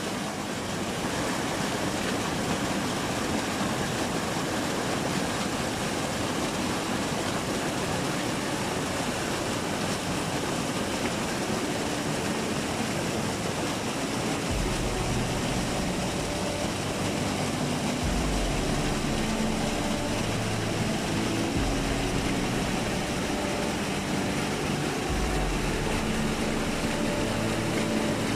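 Small waterfall in a rocky stream, water rushing and splashing steadily. From about halfway, low held tones that change every few seconds come in under the water noise.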